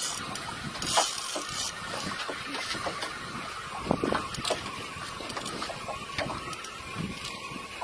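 Water lapping and slapping against the hull of a small open boat at sea, with scattered light clicks and knocks.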